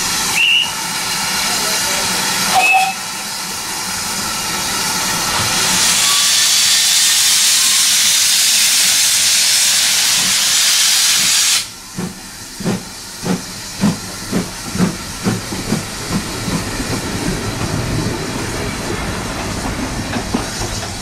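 GWR 4575 Class 'Small Prairie' 2-6-2T steam locomotive sounds two short whistle toots, then pulls away with a loud steam hiss from its open cylinder drain cocks. About twelve seconds in the hiss cuts off suddenly and its exhaust beats come through, quickening as it gathers speed.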